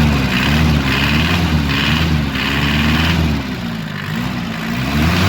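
Toyota 2L 2.4-litre four-cylinder diesel engine running, its speed swaying up and down several times, with a higher clatter that comes and goes, as its injection pump setting is adjusted to cure the knock.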